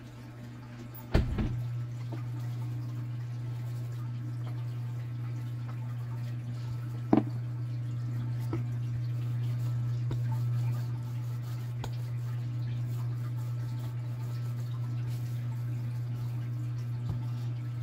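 A steady low hum, with two sharp knocks: one about a second in and one about seven seconds in.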